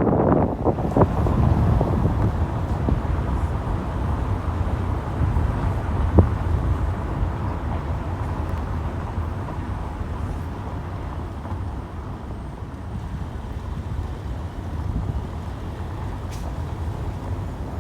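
Steady low road rumble from a vehicle driving along, with a single sharp knock about six seconds in.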